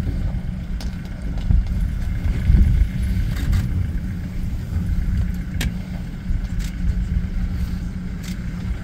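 Low, steady engine rumble of an idling vehicle, with a few faint sharp clicks.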